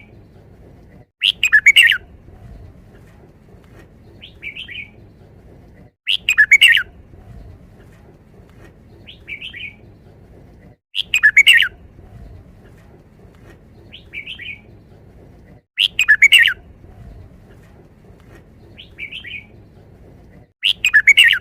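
Caged red-whiskered bulbul singing its five-syllable 'wild song' phrase. The same loud phrase comes five times, about every five seconds, with a softer short call between phrases.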